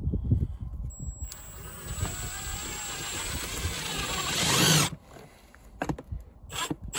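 Cordless Milwaukee impact driver driving a 3.5-inch outdoor screw into the house wall, running for about four seconds, getting louder as the screw goes in and cutting off suddenly as it seats. A few low knocks come just before it starts.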